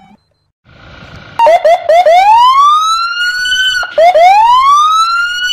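Police car siren: a few quick yelps, then a long wail rising in pitch that breaks off sharply and starts rising again.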